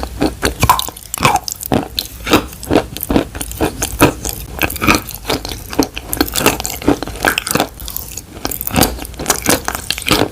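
Wet crunching sounds: a quick, uneven series of moist crunches and clicks, several a second.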